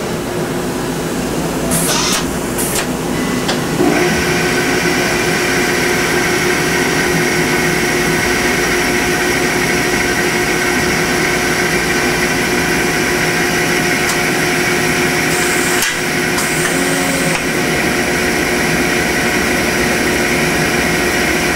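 Hardinge CHNC4-16C CNC chucker running its demonstration program: a few clicks about two seconds in, then about four seconds in the machine steps up to a steady whine of several tones as the spindle and drives run. Short hisses come past the middle.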